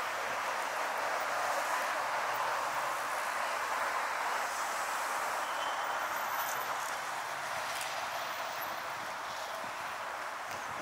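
Steady city street ambience: a continuous hiss of road traffic. It eases slightly near the end.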